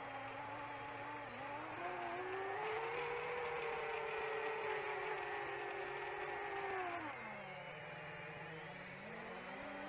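Brushless motors and propellers of a seven-inch FPV quadcopter whining in flight, picked up by the drone's onboard camera. The pitch glides up about a second and a half in as the throttle rises, holds, drops about seven seconds in, and starts climbing again near the end.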